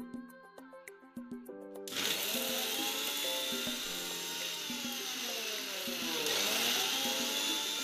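Sujata Dynamix mixer grinder switched on about two seconds in, its motor running loud and grinding roasted whole spices to a fine powder in the steel jar. The motor's whine dips and rises again about six seconds in. Plucked background music plays underneath.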